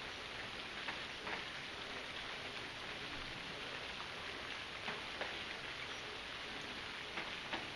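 Steady rain falling, a constant even hiss with a few louder single drops ticking now and then.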